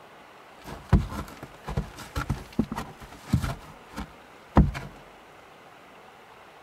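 A run of about ten irregular knocks and thumps over about four seconds, the loudest about a second in and near the end.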